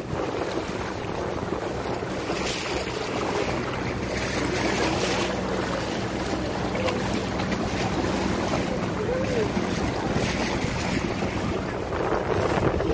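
A motor running steadily with a low hum, with wind rushing over the microphone.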